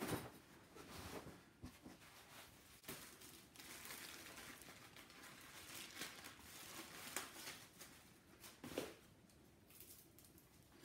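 Quiet rustling and crinkling of packing as a clear plastic bag and tissue paper are handled, with a few light knocks; the loudest rustles come right at the start and again about nine seconds in.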